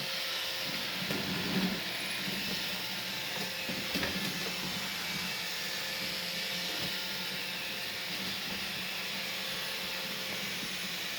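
Roomba robot vacuum running with a steady whirring hiss and a faint motor hum, with a light knock about four seconds in.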